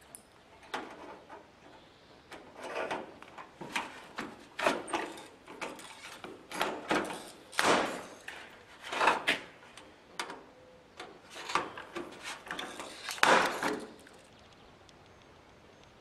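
Irregular scraping and knocking from hand work on a sheet-metal and copper-pipe solar absorber, roughly one short noisy stroke a second, stopping about two seconds before the end.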